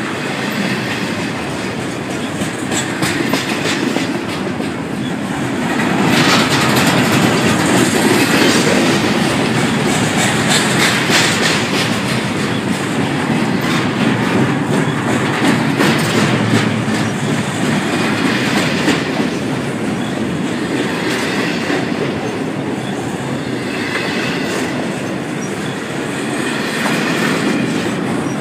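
CSX double-stack intermodal freight cars rolling past: a steady rumble of steel wheels on rail with a running clatter of clicks as the wheels cross rail joints. It grows louder about six seconds in.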